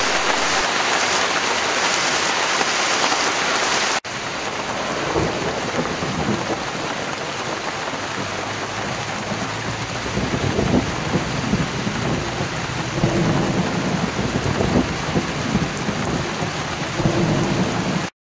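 Heavy steady rain with thunder, rumbling more strongly in the second half. The sound changes abruptly about four seconds in and cuts off suddenly near the end.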